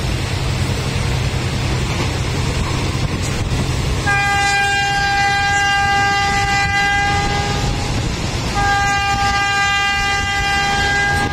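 Train horn sounding two long blasts, the first about four seconds long and the second about three, over the steady rumble and rushing air of the moving train.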